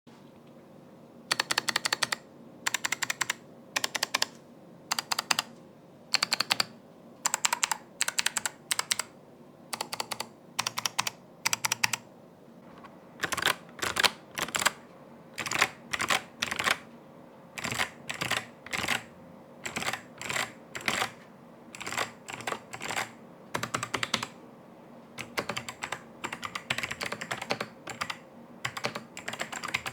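FL-Esports CMK75 gasket-mounted 75% mechanical keyboard being typed on: bursts of keystrokes separated by short pauses. The typing gets denser and more continuous near the end.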